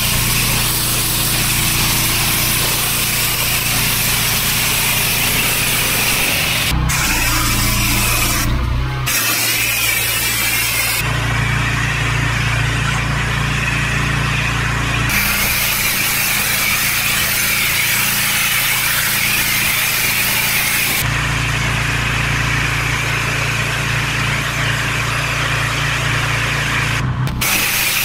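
Pressure washer engine running steadily under the hiss of the high-pressure water jet spraying. The sound shifts abruptly several times.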